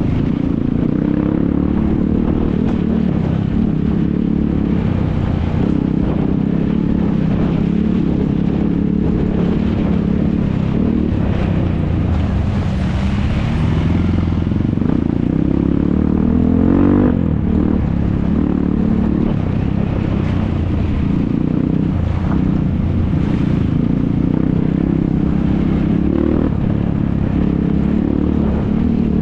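ATV (quad bike) engine running hard, its pitch rising and falling as it revs, with a sharp rev-up and drop about two-thirds of the way through.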